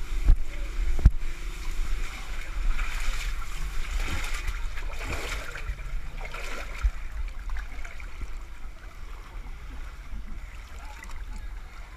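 Muddy water splashing and sloshing as a person crawls out of a corrugated pipe and through a mud pit, the splashes heaviest in the first half and easing off toward the end. Two sharp knocks come in the first second or so.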